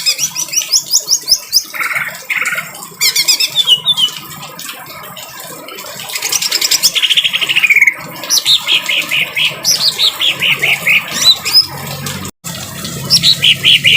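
Green leafbird (cucak ijo) calling in harsh, rough phrases: fast buzzy trills alternating with runs of sharp falling notes, over a steady hiss of rain. The sound cuts out for a split second about twelve seconds in.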